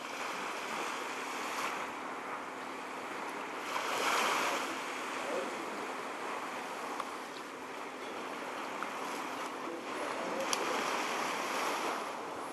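Small waves lapping and washing up on a sandy beach, a steady wash that swells about four seconds in and again near the end.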